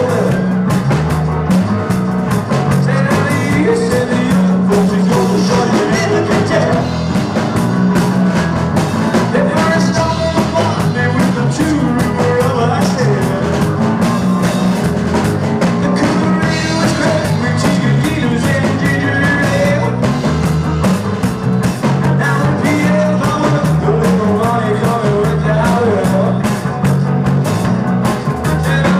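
Live rock band playing: two electric guitars, bass guitar and a drum kit, with a steady beat.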